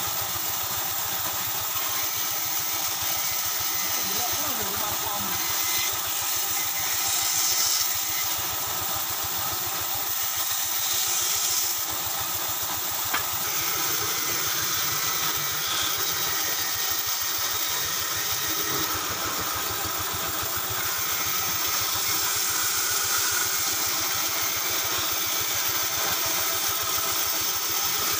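Band saw running steadily as a thick wooden slab is fed through the blade and cut.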